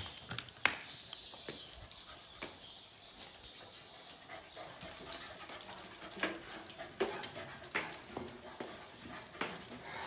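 Two dogs' claws and paws tapping and scuffing on stone stairs as they climb on leashes, in irregular clicks.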